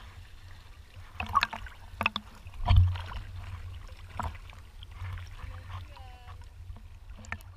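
Small sea waves lapping and splashing against a camera bobbing at the water surface, with a steady low rumble and several sharp slaps; the loudest slap comes nearly three seconds in.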